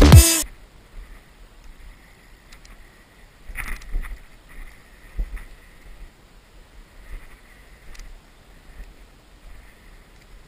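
Music cuts off at the very start. Then comes the sound of a body-mounted action camera moving on foot through woodland: footsteps and brushing through undergrowth, low rumble on the microphone, a few louder knocks about four and five seconds in, and a faint high ringing that comes and goes.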